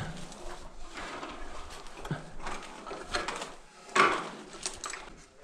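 Climbing noises on a mine-shaft ladder: gloves, rope and wooden rungs rustling and scraping, with a few short knocks, the loudest about four seconds in.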